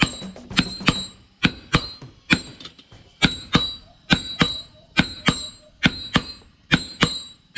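Two hand hammers striking a red-hot bolo (machete) blade on an anvil in turn, shaping it: sharp ringing blows at about three a second, with a short pause about two and a half seconds in.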